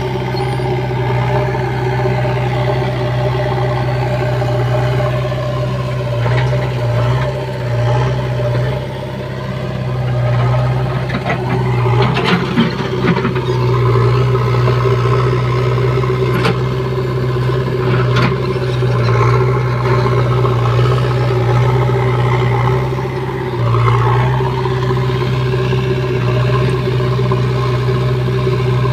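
JCB 3DX Xpert backhoe loader's diesel engine running steadily under hydraulic load as the backhoe digs soil. The engine note dips briefly twice, about nine seconds in and near the end. Sharp knocks and scrapes come in the middle.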